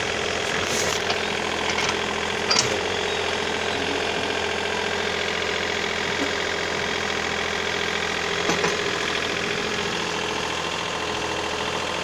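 A mini excavator's engine runs steadily while the machine works, with a couple of short knocks about two and a half and eight and a half seconds in.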